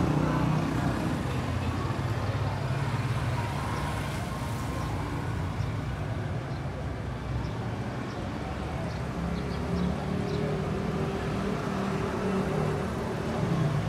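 Street traffic noise: a steady hum of motor vehicle engines and road noise.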